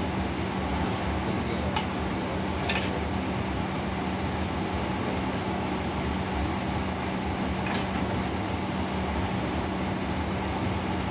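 Steady rushing noise of a commercial kitchen exhaust hood and gas range with a constant low hum, and a few faint clicks of a metal ladle against the frying pan during stirring.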